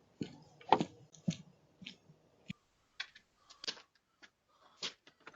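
Scattered faint clicks and taps at irregular intervals, with a low knock about two and a half seconds in.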